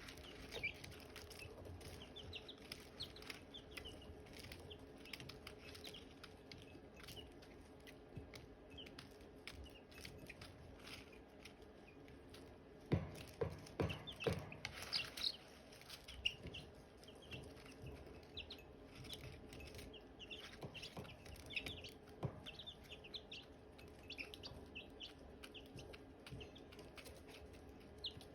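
Silkie chicks peeping: many short, high chirps over a steady low hum. About halfway through, a quick run of loud knocks.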